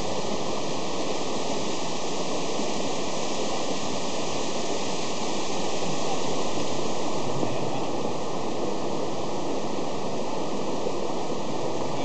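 Water rushing down a rocky mountain stream cascade below a waterfall: a steady, even rush that swells a little around the middle.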